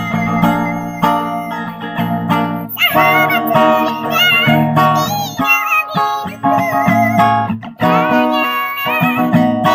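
A song played on acoustic guitar, with a singing voice carrying the melody.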